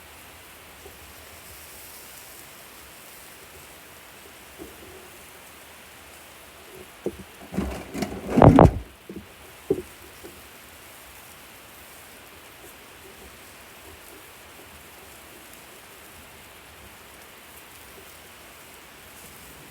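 Food sizzling on a barbecue grill, a steady crackling hiss. About seven to ten seconds in comes a short, loud run of knocks and rustling, loudest just past the eight-second mark.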